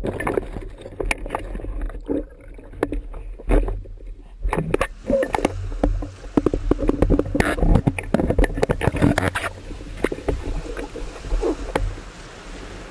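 Sea water sloshing and gurgling in the shallows, heard through an underwater camera housing just below the surface, with many irregular clicks and knocks and a steady low rumble.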